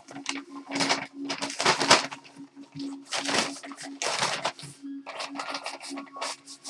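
Plastic mailing bag crinkling and rustling in bursts as hands open it and pull the shorts out.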